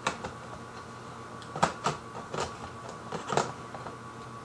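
Sharp clicks and knocks of metal telescope parts being fitted and turned by hand on the rear of a Celestron EdgeHD 11 tube, about half a dozen, unevenly spaced.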